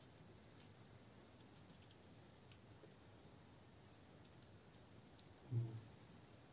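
Near silence with a few faint, small metallic clicks as steel valve collets and the valve spring retainer are worked into place on a pit bike cylinder head by hand. A brief low sound comes about five and a half seconds in.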